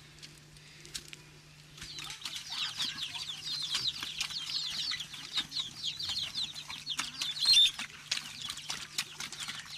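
Chicks cheeping: a dense run of quick, high, falling chirps that starts about two seconds in, mixed with sharp clicks from pigs feeding at a wooden trough.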